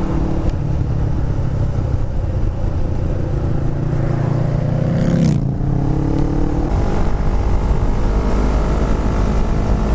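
Motorcycle engine running at road speed, heard from the rider's helmet or bike camera with wind rush. About five seconds in the engine note dips and then climbs as the bike accelerates to pass a car.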